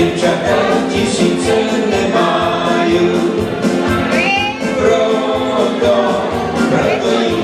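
Live dance music from a two-piece band on electronic keyboards, with a steady beat and singing.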